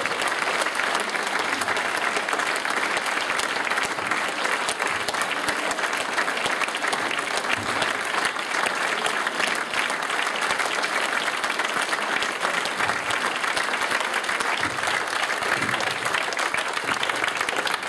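A large audience clapping together: dense, sustained applause that holds at a steady level throughout.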